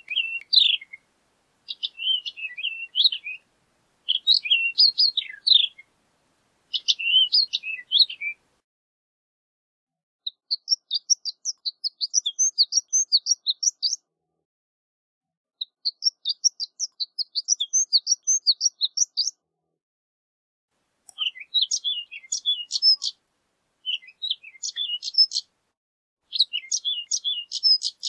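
Horned lark singing: short phrases of rapid high twittering notes separated by pauses of about a second, with two longer runs of quick, evenly repeated high notes in the middle.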